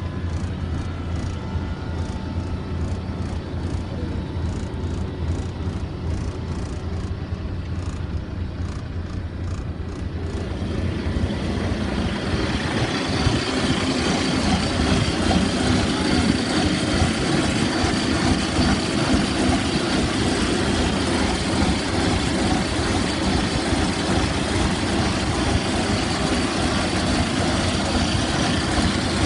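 IVECO TurboStar 190-48's 17.2-litre twin-turbo V8 diesel idling steadily. It is muffled at first, as heard inside the cab, then from about twelve seconds in louder and clearer, heard from outside near the exhaust pipe.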